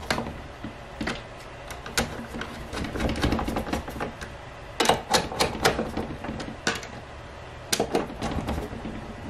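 Screws being driven into a turntable motor's metal cover plate with a screwdriver, with the plate handled by hand: irregular sharp clicks and taps, bunched together about five and about eight seconds in.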